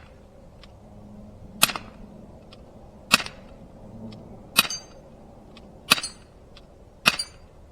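Umarex Glock 19 CO2 BB pistol firing five shots, about one every second and a half, each a sharp pop. Fainter clicks fall between the shots, and two of the shots are followed by a brief metallic ring.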